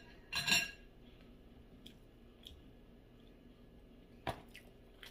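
Bare hands pulling at braised pork leg in a disposable aluminium foil tray: a short rustle of the foil about half a second in, then a few light clicks and taps, the loudest a sharp click near the end.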